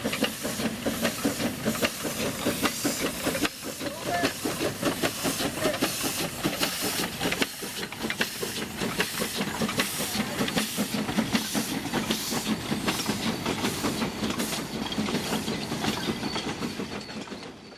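A 762 mm gauge C2 class 0-8-0 steam locomotive working a coal train. Its exhaust beats come in a steady rhythm of about two to three a second, and steam hisses from the open cylinder drain cocks.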